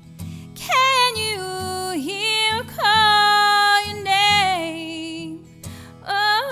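A woman singing long, sliding notes over an acoustic guitar, with a short break in the voice about five and a half seconds in.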